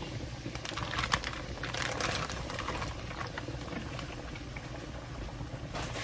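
Raw shrimp going into a pan of hot melted garlic butter and frying: a crackling sizzle with a cluster of sharp crackles in the first couple of seconds, then a steadier fizz.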